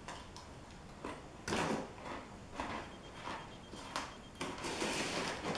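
Crunching and snack-packet rustling as a person eats Pretzel Goldfish crackers, in a string of short, uneven crunches and crinkles.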